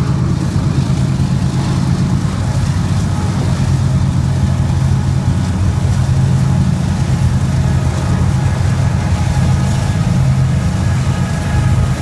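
Diesel locomotives of a BNSF double-stack freight train passing close by, their engines running with a steady low drone. Near the end the container well cars start to roll past.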